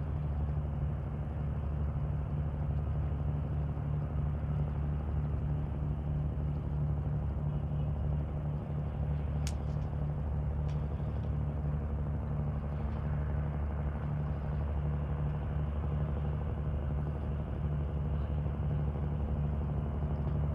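Steady low engine drone with a deep, even hum, typical of a river cargo ship's diesel engine. A single short click about nine and a half seconds in.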